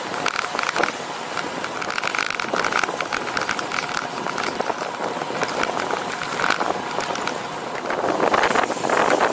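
Riding noise from a road bicycle picked up by a bike-mounted camera: wind on the microphone and tyre and road noise, with many small clicks and rattles. The wind noise grows louder near the end.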